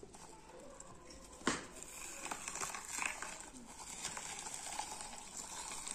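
Hand-cranked metal meat grinder mincing red onion: an uneven crunching, crackling grind with small clicks as the handle turns, and one sharp knock about a second and a half in.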